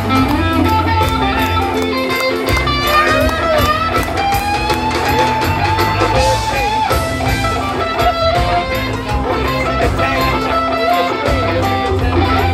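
Live band music played through a concert PA: a lead electric guitar plays a melody with bent, long-held notes over steady bass and drums.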